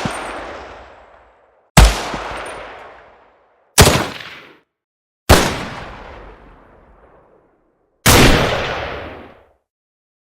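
M16 assault rifle firing: four separate sharp reports every two seconds or so, each fading out in a long echoing tail, the last one a longer burst.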